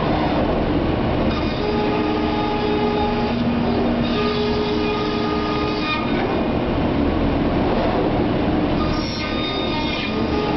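Komo CNC router running: a loud, steady machine noise with several high tones that drop in and out every second or two.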